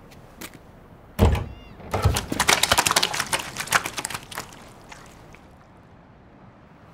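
A door thuds open about a second in. Then a heap of fish tumbles out onto stone paving in a dense clatter of many small knocks lasting about two and a half seconds, thinning out at the end.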